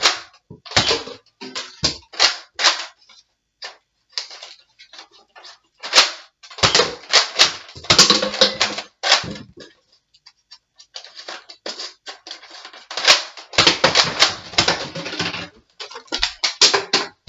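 Pump-action Nerf blaster being pumped and fired again and again, sharp plastic clacks and pops in quick clusters with short pauses between volleys, darts smacking into targets.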